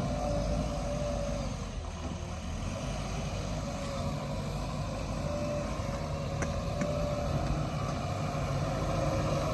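JCB backhoe loader's diesel engine running steadily, with a wavering whine over a low rumble.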